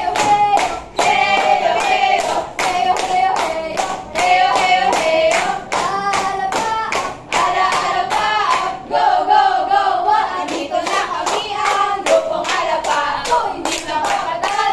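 A group of young people singing together while clapping their hands on a steady beat.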